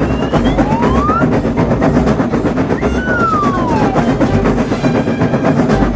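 Train running with a rhythmic clickety-clack of wheels over rail joints. A gliding tone rises about half a second in and another falls about three seconds in.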